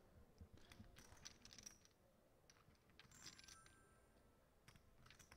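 Near silence at a poker table, broken by a few short spells of faint clicking and clacking of poker chips.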